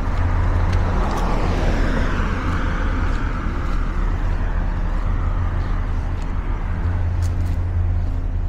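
A car passing along the street: its tyre and engine noise swells about a second in and fades away by about five seconds, over a steady low hum.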